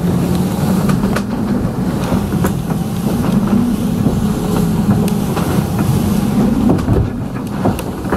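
Steady loud rumble of a sailing catamaran driving fast through rough water in strong wind, with a few scattered knocks as the hulls bounce over the waves.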